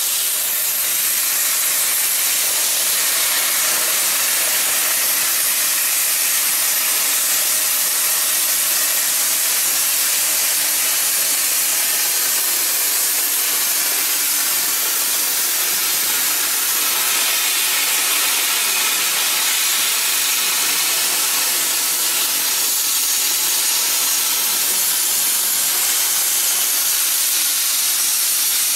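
CNC plasma cutting torch cutting through metal plate, a steady loud hiss that does not change.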